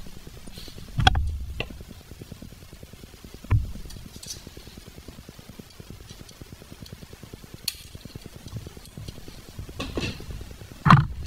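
Hand tools and small metal parts being handled: a handful of sharp clicks and knocks, the loudest about a second in and near the end, over a steady low hum.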